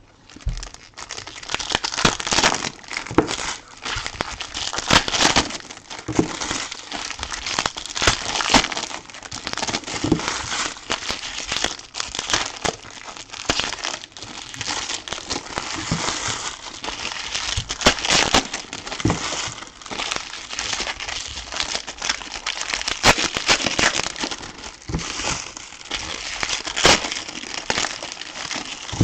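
Trading card packaging being opened by hand: wrappers crinkling and tearing almost without pause, with many sharp crackles.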